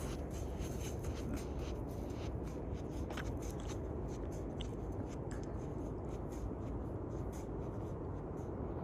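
Wind noise on the microphone, a steady low rumble, with scattered faint scrapes and clicks.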